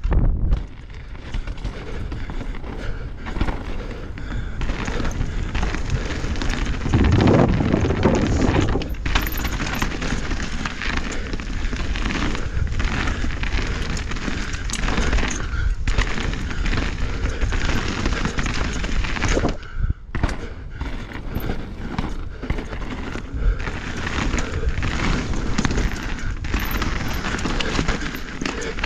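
Norco Fluid full-suspension mountain bike on Maxxis Assegai tyres descending dirt singletrack: a continuous rush of tyre noise on dirt with frequent knocks and rattles from the bike over bumps and roots, loudest about seven to nine seconds in.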